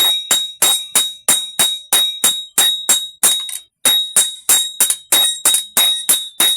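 Blacksmith's hammer striking steel on an anvil while forging a parang blade, about three ringing strikes a second, with a short pause a little past halfway.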